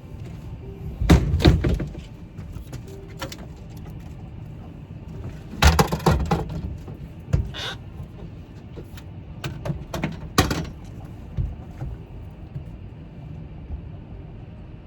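Several loud knocks and clatters in groups, about a second in, around six seconds in and around ten seconds in, over a steady low rumble.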